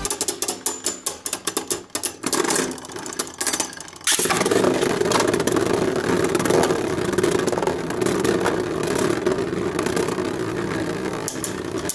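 Two Archer Hercules Beyblade spinning tops battling in a plastic stadium. For about four seconds there is a rapid run of sharp clicks as they clash. Then the sound changes suddenly to a steady, loud whirring rumble as the tops spin and grind across the stadium floor.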